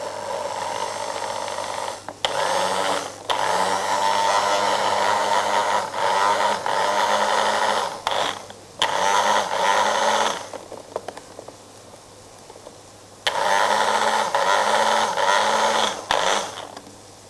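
Small press-top electric mini chopper run in a series of bursts, from a fraction of a second to several seconds, with a pause of a few seconds about two-thirds of the way in. It is blending basil, pecorino and olive oil into pesto, and its motor hum sags briefly in pitch now and then as the blades bite.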